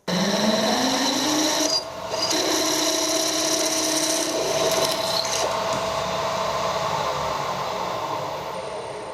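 Electric power tool motor starting with a rising whine, dipping briefly about two seconds in, then running steadily and slowly dying away near the end.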